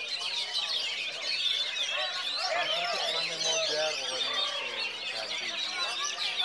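Oriental magpie-robin (kacer) singing a fast, unbroken run of varied twittering whistles and slurred notes, over other birdsong.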